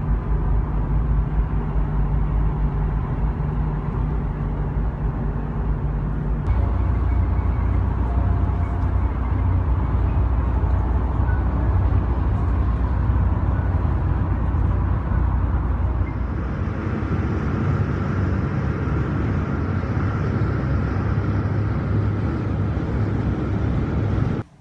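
Road and engine noise inside a moving Toyota's cabin: a steady low rumble that changes abruptly about six seconds in and again about two-thirds of the way through.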